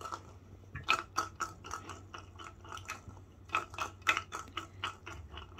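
Treats rattling inside the clear plastic ball of a spring-mounted treat-dispensing toy as a cat bats it and sets it swinging: a run of irregular sharp clicks and rattles.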